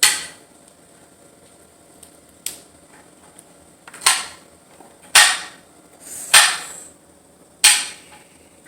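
Kitchen knife chopping green beans on a glass cutting board: a sharp knock at the start, a light one a little later, then four loud chops about a second apart, each with a short ring.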